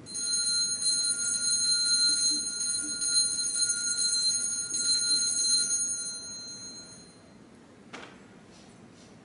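Altar bell ringing steadily for about six seconds, then fading away: the bell rung at the elevation of the host during the consecration at Mass.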